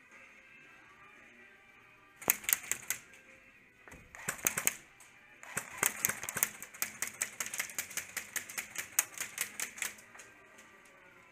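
Airsoft guns firing: a short burst of shots about two seconds in, another about four and a half seconds in, then a long run of rapid, evenly spaced shots, about six a second, that stops near the end.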